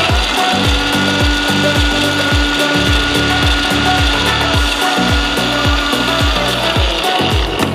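Electric mixer grinder running at speed, grinding roasted coconut and spice masala in a small steel jar: a steady high whine that cuts off near the end. A dance beat with low thumps plays underneath.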